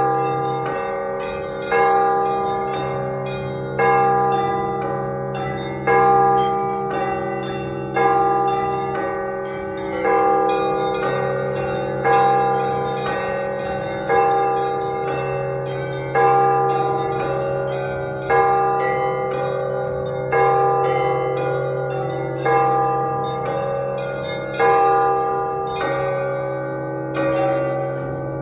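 Russian Orthodox church bells rung by hand in a peal: a heavy stroke about every two seconds with smaller bells struck quickly in between, all ringing on together. The strikes stop near the end and the bells ring out.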